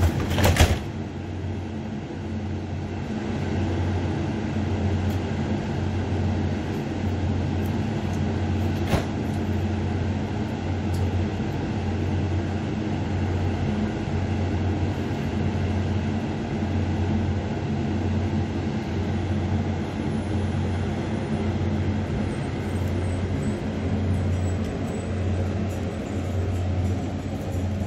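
A Mugunghwa-ho passenger train standing at a station platform gives a steady low hum that swells and fades evenly. A brief loud noise sounds right at the start, and a single sharp click about nine seconds in.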